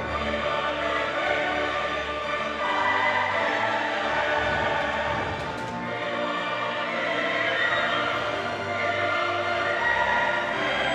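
Orchestral music with a choir singing, a solemn anthem-like piece.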